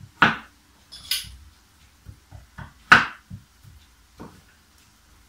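Kitchen knife cutting squash into small cubes on a wooden cutting board: a handful of irregular knocks of the blade on the board with lighter taps between, the loudest about three seconds in.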